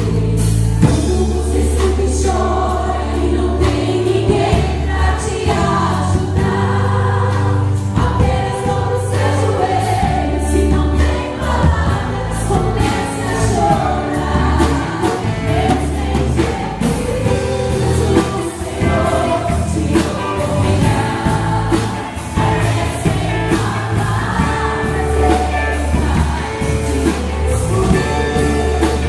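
Live gospel worship music: a choir singing over a band with a strong bass line and a steady beat.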